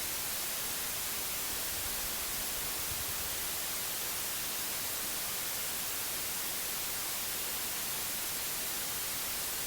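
Steady white noise, an even hiss strongest in the high frequencies, holding a constant level.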